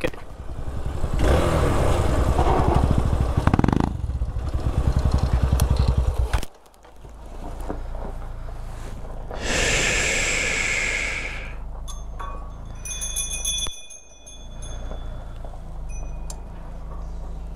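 Single-cylinder dual-sport motorcycle engine running at low speed on a rough dirt track, heard from the rider's seat. About a third of the way in it drops off sharply to a quieter low hum, with a couple of seconds of hiss near the middle and a few brief high ringing tones after that.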